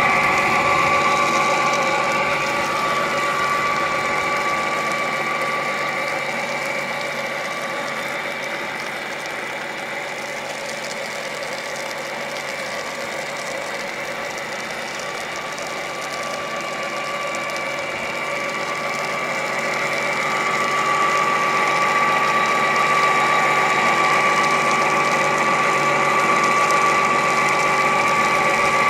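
Small electric pump and fan motors of radio-controlled fire-fighting models running steadily with a high whine as they pump and spray water. The whine grows quieter for a while in the middle and then louder again.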